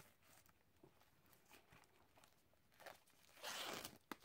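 Faint handling of a shrink-wrapped Blu-ray digibook: a brief rustle of the plastic wrap being opened about three and a half seconds in, then a single click.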